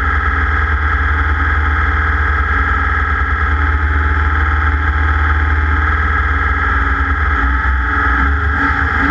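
Race engine running hard at steady high revs, heavily distorted and overloading the microphone, with a deep rumble underneath.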